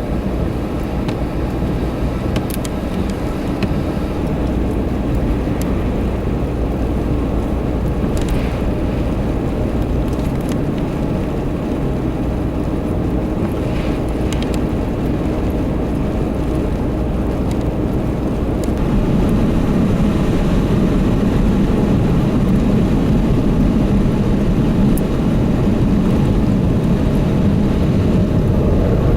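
Motor vehicle running, a steady low rumble with road and wind noise, growing louder about two-thirds of the way through.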